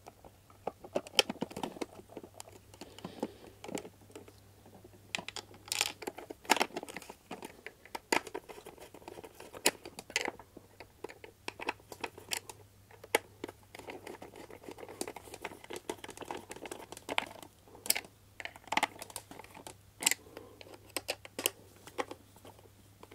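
Plastic food-chopper housing being handled and closed up, with screws driven in by a screwdriver: irregular clicks, taps and short scrapes of metal on plastic.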